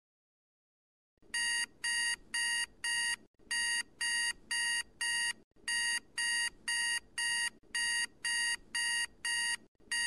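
Electronic alarm beeping, starting about a second in: short buzzy beeps about two a second, in groups of four with brief pauses between, a warning-alert sound effect.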